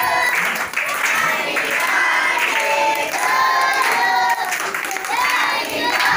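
A group of children singing together loudly in chorus.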